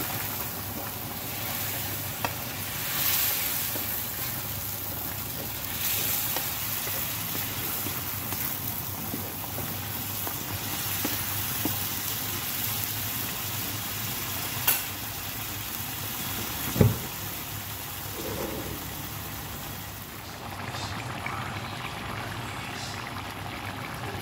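Beef curry sizzling and bubbling in a non-stick pan after the beef's boiling water has been stirred in, with a wooden spatula stirring through the sauce. A few sharp clicks and one louder knock about two-thirds of the way through; the hiss eases near the end.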